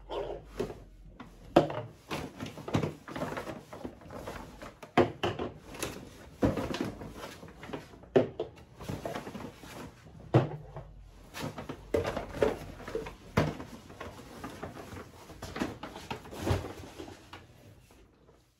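Bottles and packaging being handled and set down on a hard surface: a run of irregular knocks and clatter with some rustling.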